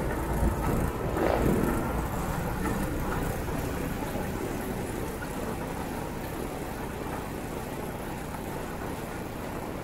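Motorcycle engine and road noise while riding, gradually getting quieter.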